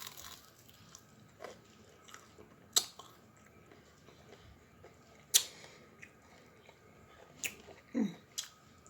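Close mouth sounds of someone eating sauced chicken wings: scattered wet smacks and bites, the sharpest about five seconds in, with a short 'mm' near the end.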